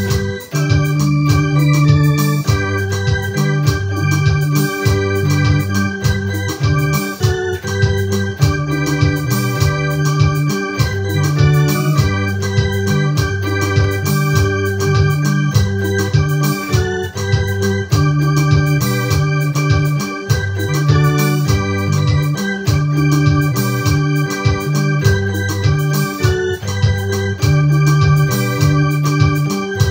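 Electronic arranger keyboard playing an instrumental gospel tune in an organ voice: sustained chords that change every second or two over a strong bass line, with quick regular ticks in the treble.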